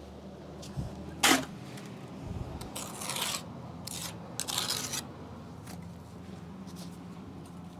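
A steel brick trowel scraping mortar onto a brick being buttered for setting: a sharp clink about a second in, then two short scrapes around the middle.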